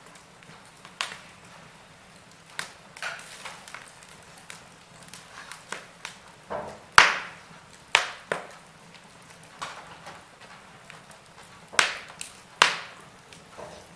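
Wood fire in a fireplace crackling, with sharp irregular pops every second or so over a faint hiss; the loudest pop comes about halfway through.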